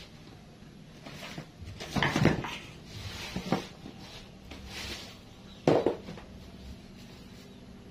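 Kitchenware clattering in a few short knocks and clanks, the loudest about two seconds in and again near six seconds, over a faint steady low hum.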